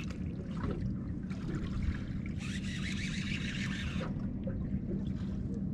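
Water lapping and trickling against the boat's hull, over a steady low hum from the idling outboard motor. The watery hiss swells for about a second and a half near the middle.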